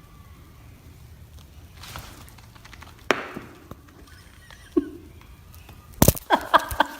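A few sharp knocks and thuds: one at about three seconds, a smaller one near five, then a quick cluster of clattering knocks about six seconds in.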